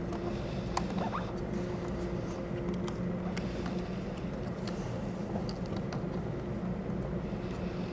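Hands pressing a rubber weather seal down onto a motorcycle saddlebag lid: small scattered clicks and rubbing over a steady low hum.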